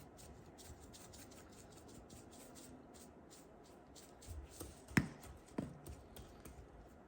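Marinated ribeye steak crackling faintly on a grill, with a steady scatter of small pops. About five seconds in come a sharp knock and then a second, softer one.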